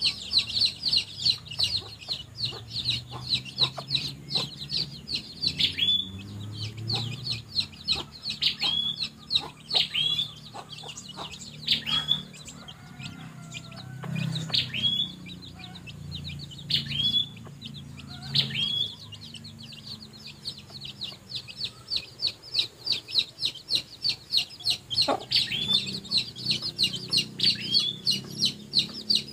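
Young chicks peeping in a fast, high-pitched stream, several peeps a second, thinning out for a few seconds midway, over a mother hen's low clucking.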